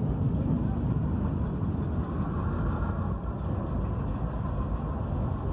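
Herzog ballast hopper cars of a freight train rolling past on the track, a steady low rumble of steel wheels on rail.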